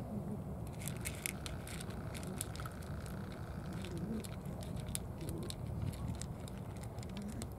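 A cat eating wet food from a small plastic tray: irregular wet clicks and smacks of chewing and licking, over a steady low rumble.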